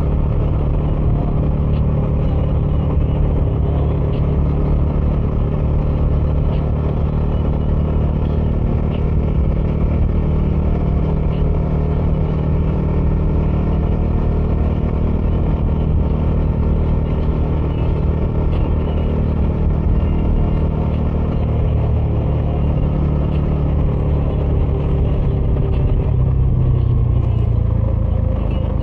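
Bajaj Dominar 400's single-cylinder engine running under way through its stock dual exhaust, a loud, steady note. The engine pitch shifts in the last third.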